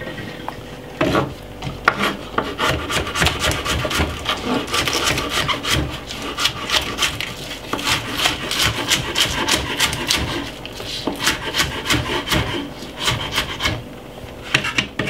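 Kitchen knife slicing spring onion on a wooden chopping board: a rapid run of short cutting strokes, each knocking on the board, with brief pauses.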